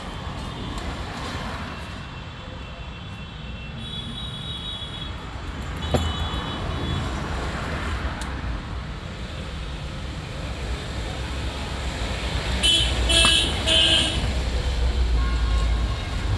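Steady road-traffic rumble with car horns tooting: faint short toots around four to six seconds in, then three louder honks in quick succession near the end. A single sharp click comes about six seconds in.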